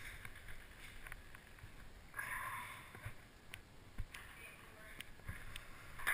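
Lull between points: a few scattered light clicks of a ping pong ball bouncing, the sharpest about four seconds in, and a short breathy noise about two seconds in.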